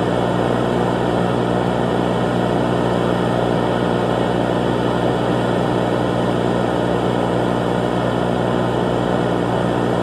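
Emergency alert system alarm: a loud, steady electronic drone of many held tones under a thick noisy hiss, unchanging throughout.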